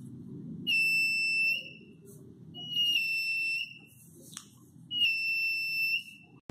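Buzzer of a DIY metal detector kit beeping three times, each a steady high tone about a second long, as metal is held over its printed search coil: the detector signalling that it senses metal. A faint click comes between the second and third beeps.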